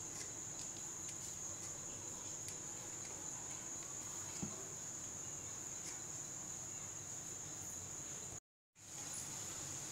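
Steady high trilling of crickets, with a few faint taps of a knife cutting through dough onto a stone counter. The sound cuts out completely for a moment near the end.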